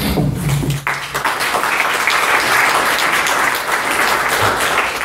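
Audience applauding in a hall, the clapping swelling about a second in and then holding steady.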